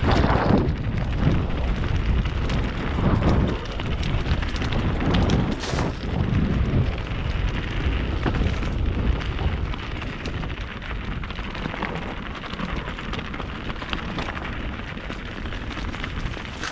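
Mountain bike descending fast over a rough, gravelly trail: wind rumbling over the camera microphone, with the clatter of tyres, chain and frame knocking over stones.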